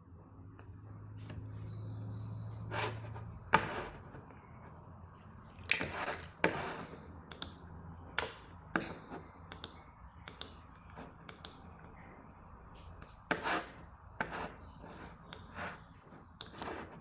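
Irregular clicks, taps and knocks of small objects being handled, with a low hum during the first few seconds.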